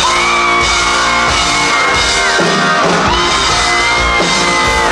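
Rock band playing live: drums and electric guitar under two long held high notes, each sliding up into pitch and lasting about two seconds.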